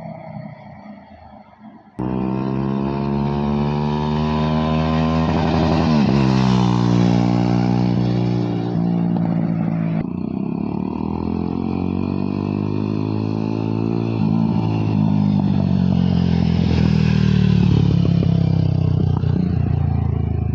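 Jawa 42 2.1 motorcycle's single-cylinder engine and exhaust pulling away and accelerating. It comes in suddenly about two seconds in, with the engine note shifting and gliding in pitch as the revs change. It breaks off abruptly about ten seconds in and goes on running hard to the end.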